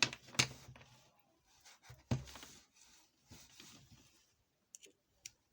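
Handling noise from a small plastic mobile phone: two sharp clicks, one at the start and one about two seconds in, with rubbing and rustling in between and a few light ticks near the end.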